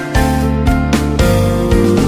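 Instrumental background music with notes changing at a steady pace.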